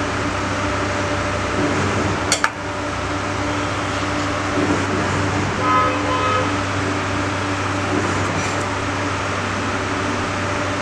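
Steady mechanical hum and whir, like a room fan or air conditioner running. A single sharp click comes about two seconds in, and a short tone sounds about six seconds in.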